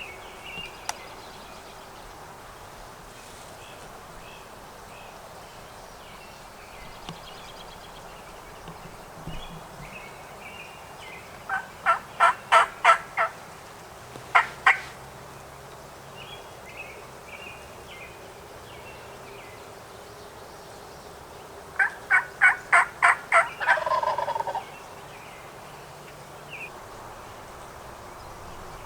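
Wild turkey gobbler gobbling twice, each gobble a loud rapid rattle lasting about a second and a half, about ten seconds apart. Small songbirds chirp faintly throughout.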